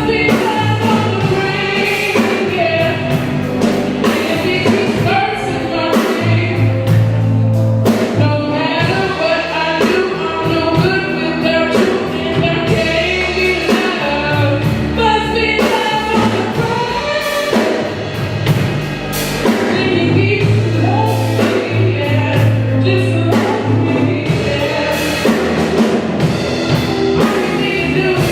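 A live band playing with several singers: voices singing over a bass line and drum kit.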